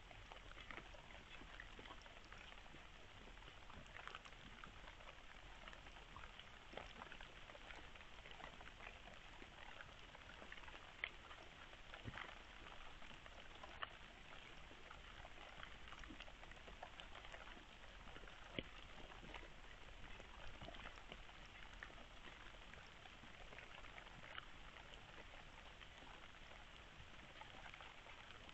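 Near silence outdoors at night: a faint steady hiss with scattered soft ticks and a few sharper clicks at irregular intervals.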